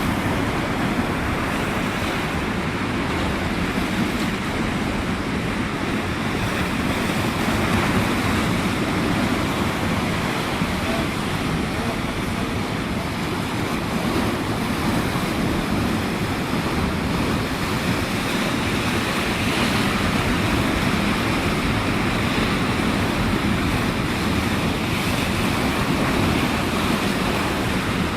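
Sea waves rushing and breaking in a continuous wash that swells gently in loudness, with wind buffeting the microphone.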